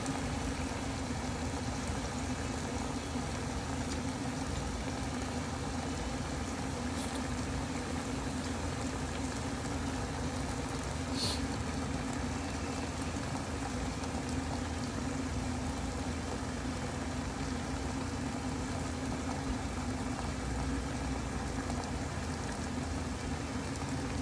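Steady low hum with a pot of napa cabbage soup simmering under its lid on the stove. A single sharp click about eleven seconds in.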